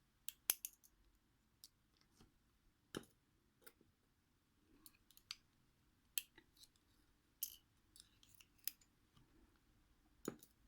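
Light, sharp metallic clicks and taps, spaced irregularly about once a second, from small pins and a tool being handled while an ASSA 600 lock cylinder is taken apart.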